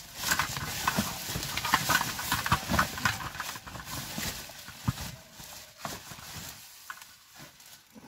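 Plastic bin bags crinkling and rustling with scattered knocks as they are rummaged through and a desk globe is pulled out from among them. The noise thins out about five seconds in.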